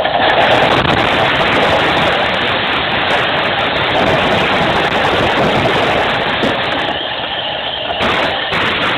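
Earthquake rumble: a loud, steady rushing roar of a shop being shaken, starting suddenly and holding without a break.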